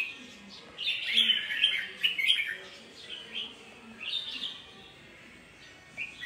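Red-whiskered bulbul singing: a rich burst of bright, warbled phrases about a second in, then shorter phrases spaced through the rest.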